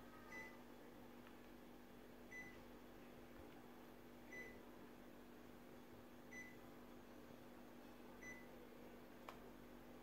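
Panasonic CS-LN9WKJ split air conditioner's indoor unit giving five short high beeps, about two seconds apart, over a faint steady hum. A single sharp click comes near the end.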